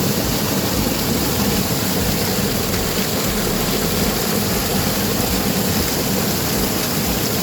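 Steady, loud rushing of fast-flowing water, a rain-swollen stream, with no breaks or changes.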